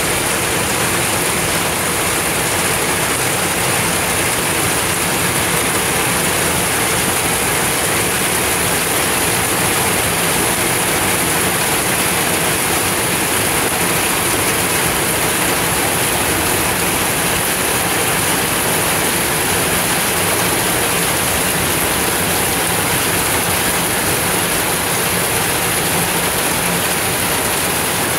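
Heavy thunderstorm downpour pouring steadily onto the pavement: a loud, even hiss with no let-up.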